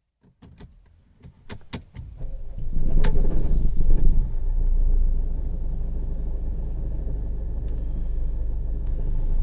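A few clicks, then a Mercedes CLA 200d's four-cylinder diesel engine cranks and starts about two seconds in, flares up and settles into a steady idle. It rattles at start-up and idle from a worn dual-mass flywheel.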